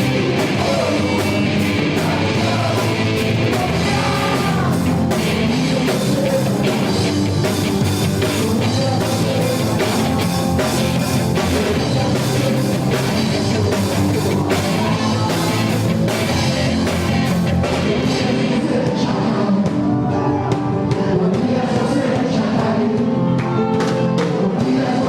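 Live gospel rock band playing with drum kit and electric guitars, with singing over it.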